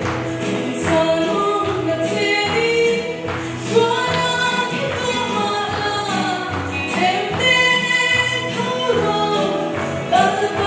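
A woman singing a gospel song into a microphone, with other voices singing along and a steady beat of percussion.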